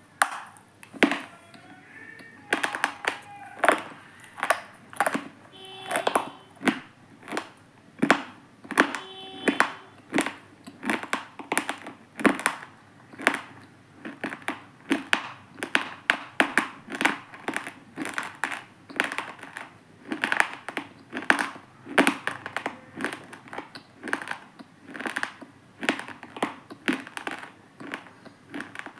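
Crumbly, irregular stone being crunched over and over, about one to two sharp crunches a second.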